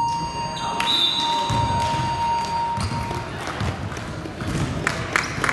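Basketball game in a gym: voices murmuring, a steady high tone held for about three seconds near the start, then a basketball bouncing on the hardwood in quick sharp knocks near the end.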